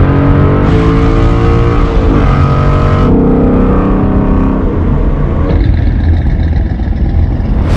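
Car engine accelerating, its pitch rising, dropping about two seconds in and rising again, with sudden changes in sound about three and five and a half seconds in.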